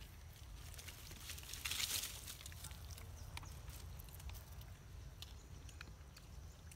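Faint rustling and scattered light clicks of monkeys moving over a rock and dry leaf litter, with a louder rustle about two seconds in, over a low steady rumble.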